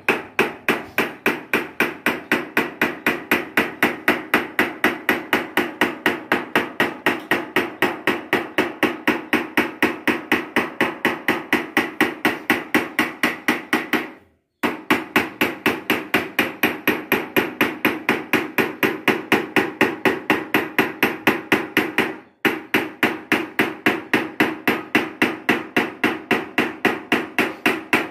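A hammer beats along the edge of curved sheet-metal dome panels in a fast, even rhythm of about four blows a second, each blow ringing. The hammering stops briefly twice.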